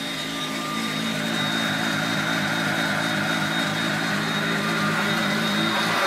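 Hoover Junior 119 upright vacuum cleaner running steadily: a motor whine with its brush roll turning on freshly refurbished roller bearings. It grows slightly louder about a second in.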